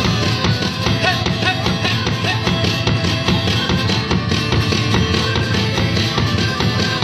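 Live band music: an instrumental passage between sung verses, with a steady percussive beat.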